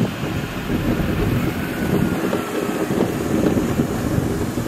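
Mini Cooper driving slowly past at low speed, engine and tyres, with wind rumbling on the microphone.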